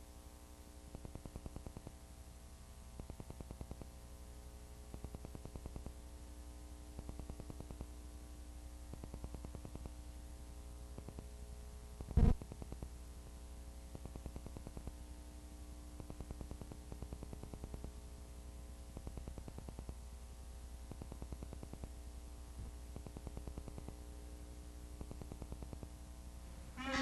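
Steady electrical hum and buzz with faint crackling ticks, the noise floor of an old recording before the music starts, with a single sharp pop about twelve seconds in.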